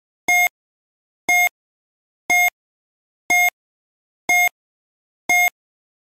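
Quiz countdown timer ticking down with short electronic beeps, one a second, six in all, each a single pitched tone with silence between.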